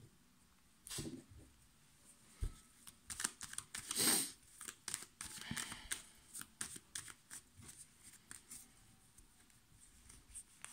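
A deck of tarot cards being shuffled and handled by hand: a run of short soft card clicks and flicks, with a longer rustle of cards sliding about four seconds in.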